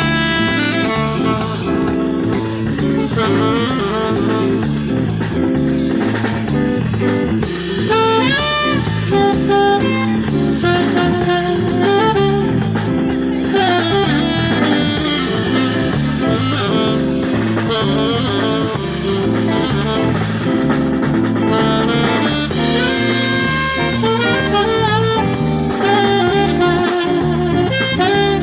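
Live jazz band playing: a horn melody over a stepping bass line and a drum kit.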